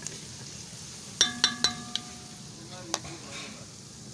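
Oil sizzling in a metal pressure-cooker pot as a wooden spatula stirs it. About a second in the spatula knocks the pot three times in quick succession, each knock ringing briefly, and it knocks once more a little later.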